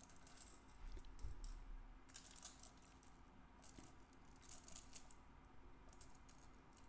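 Faint metallic clinking and jingling of a Honda CBX roller cam chain and small cam sprocket being handled and fitted on the cylinder head, in a few short bursts, with a soft knock about a second in.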